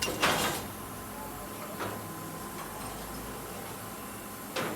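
Plasma cutter torch giving short hissing bursts: a loud one just after the start, a fainter one about two seconds in and another near the end, over a low steady hum.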